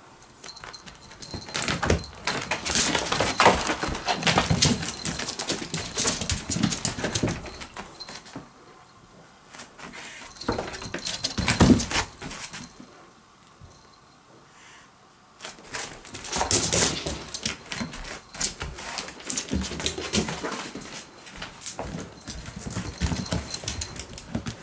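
A cat chasing and pouncing on a live mouse across a wooden floor and tatami: bouts of scrabbling paws, knocks and thuds, with animal sounds mixed in, in three bursts separated by short lulls.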